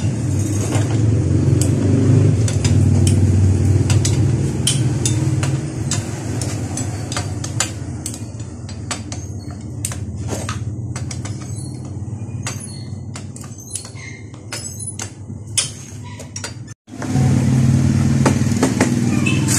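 Short metal clicks and clinks of a hand wrench loosening the clutch-cover bolts on a Yamaha Sniper 150 engine, over a steady low hum.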